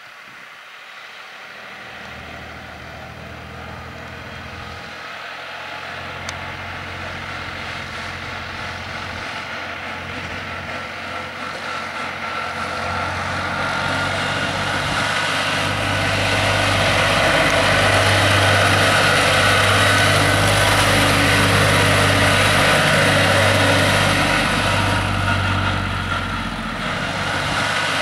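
Valmet 33 tractor engine running steadily as the tractor drives toward the microphone, growing louder over the first two-thirds, dipping briefly near the end, then coming back up.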